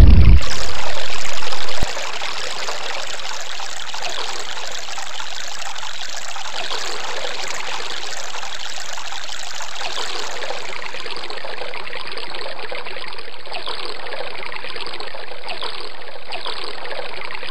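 Running water of a small stream, a steady rushing and trickling, a little louder for about the first two seconds.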